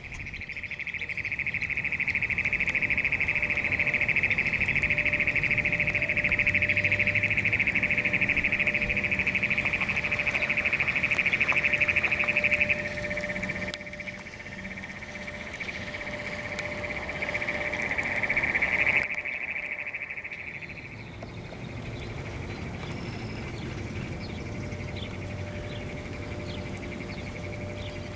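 A continuous high-pitched trilling chorus of calling animals over standing floodwater, loud for about the first half, dropping suddenly about halfway through, swelling again and then settling fainter for the last third.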